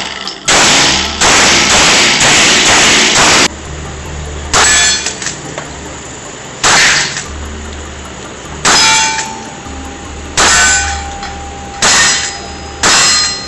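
Pistol shots echoing in an indoor range: several in quick succession in the first few seconds, then single shots about every one and a half to two seconds. Several shots are followed by a metallic ringing.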